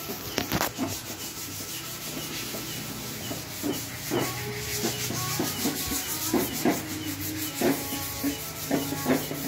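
Hand sanding of bare teak chair frames with sandpaper: a steady rasping rub, with a few light knocks of wood.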